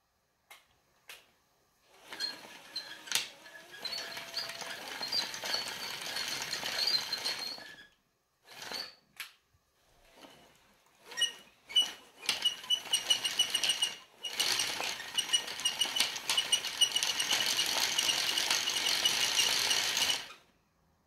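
Wooden tank track running around its wooden sprocket and road wheels, its wooden links clattering with a fast, even ticking. It runs in two spells, about six seconds and then about nine seconds, with a short pause and a few single knocks between, and stops just before the end.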